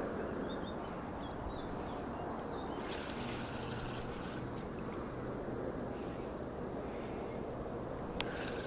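Outdoor ambience: a steady low rumble of wind on the microphone under a constant high hiss. A few short bird chirps come in the first three seconds, and there is a sharp click near the end.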